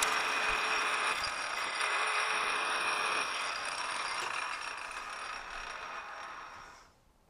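Metal lathe running while a boring bar takes a light internal cut in a ring: a steady mechanical hum with a high whine. It eases off from about four seconds in and dies away just before the end as the lathe stops.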